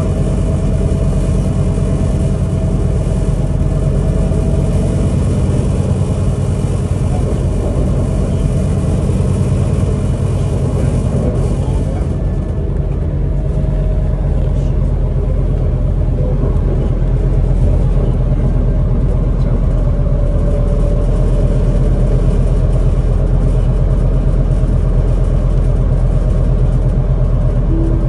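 Cabin noise of a Scania Citywide LFA articulated city bus under way: a steady low engine drone and road rumble with a faint steady whine. A high hiss drops away about halfway through, and the drive grows a little louder later on.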